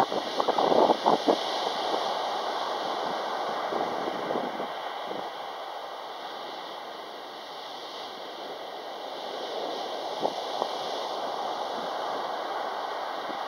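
Sea waves breaking on a pebble beach: a wave crashes in the first second or so with a rattle of clicks, then a steady hiss of surf washing up and drawing back over the stones.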